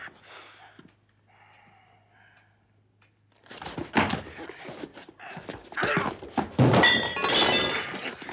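About three seconds of near quiet, then a run of loud crashes and thuds, with bright clinking and ringing about seven seconds in.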